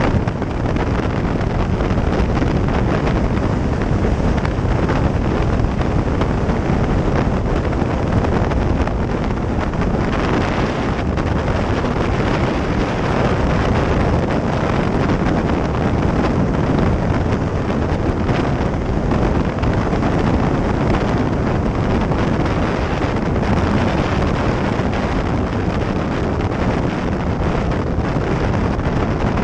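Steady wind rush over the microphone of a sport motorcycle riding at speed, mixed with engine and road noise.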